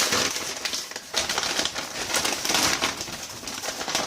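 Packing material rustling and crinkling in irregular bursts as a parcel is unpacked by hand.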